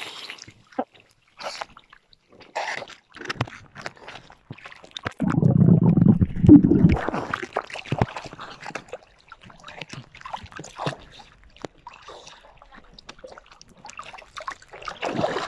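Sea water splashing and sloshing close to the microphone in irregular bursts, with a louder rush of water a little past the middle.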